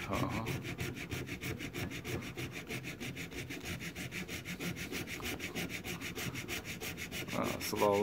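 Small hand saw cutting through the plastic case of a power adapter along its seam, in quick, even back-and-forth strokes.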